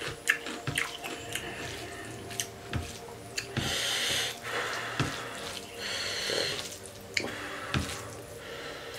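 Close-miked eating sounds: wet chewing and smacking with scattered mouth clicks, and a couple of brief, louder wet bursts.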